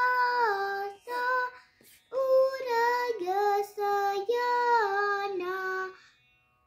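A young girl sings a Carnatic song unaccompanied, holding long notes with gliding ornaments. She breaks off briefly a second or two in, sings again, and stops shortly before the end.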